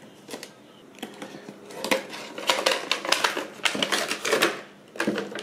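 Unboxing an action figure: a few light ticks as a box cutter slits the tape seal on a cardboard box. From about two seconds in, the cardboard and the clear plastic blister tray crackle and click busily as the tray is pulled out, pause briefly, then crackle again near the end.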